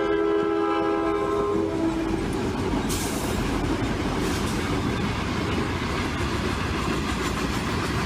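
A freight locomotive's air horn sounding a multi-note chord, which stops about two seconds in. The train then rolls past with loud rumble and wheel clatter.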